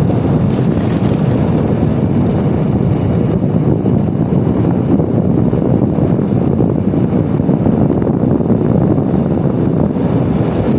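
Steady wind rush buffeting the microphone on a motorcycle coasting downhill in neutral with its engine switched off. The noise is a constant low rumble, with no engine note in it.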